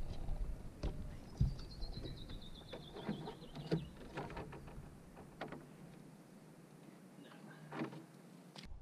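Scattered light knocks and clicks of gear being handled on a fishing boat's deck. About a second in, a quick run of short high chirps falls steadily in pitch.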